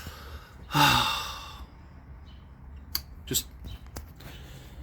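A man lets out a long sigh about a second in, a short falling voiced sound trailing off into breath. Three light clicks follow in the second half.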